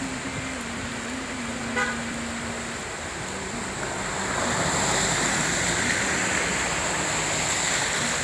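Road traffic on a flooded road: an engine idling with a low hum, a short car-horn toot about two seconds in, then from about four seconds a louder hiss of tyres splashing through floodwater as cars pass close by.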